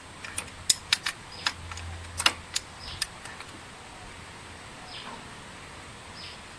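Metal clicks and clinks of a ring spanner working a starter-motor mounting bolt on a scooter, about eight sharp ticks over the first three seconds, then quieter.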